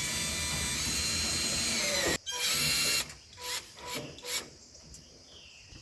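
Cordless screw gun running for about two seconds as it drives in a screw, its whine rising near the end before it stops sharply, then a shorter second run, followed by a few light clicks and knocks.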